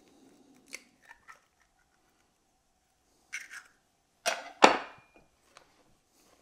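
Eggs being cracked with a knife into a ceramic mixing bowl. A few soft clicks are followed by a short scrape, then two sharp knocks about four and a half seconds in, the loudest sounds here, of knife and shell against the bowl and board.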